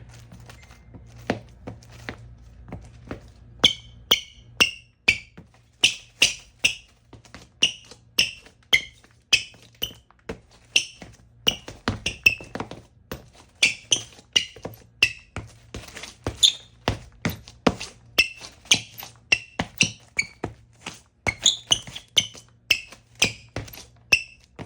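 Nike Kobe 4 Protro basketball shoes squeaking on a floor: short, high rubber-sole squeaks, roughly two a second from about four seconds in, mixed with sharp footfall taps.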